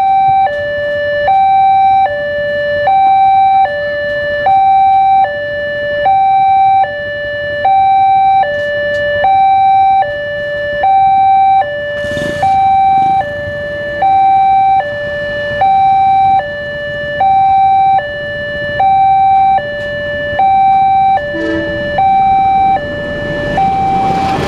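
Railway level-crossing warning alarm sounding an electronic two-tone signal, a higher and a lower tone alternating about every three quarters of a second, warning that a train is approaching. Near the end the rumble of the approaching train rises under it.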